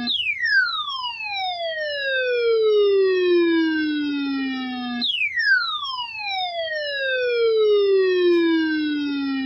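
A loud electronic tone with overtones swooping down in pitch from high to low over about five seconds, then jumping back up and swooping down again about halfway through, coming from the KEC63 NOAA Weather Radio web stream stuck repeating the same sound.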